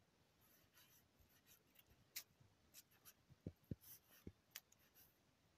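Faint scratching and crumbling of hands picking through dug-up soil, with scattered small ticks and a few soft knocks a little past halfway.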